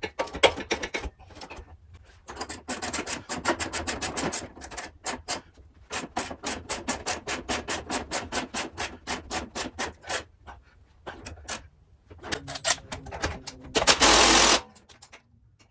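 Hand ratchet wrench clicking in fast runs of about seven clicks a second as suspension bolts are tightened. A short, loud burst of noise comes near the end.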